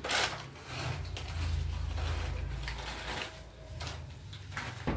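Mechanical clicks and knocks, sharpest at the very start, with a low rumble for a couple of seconds in the middle.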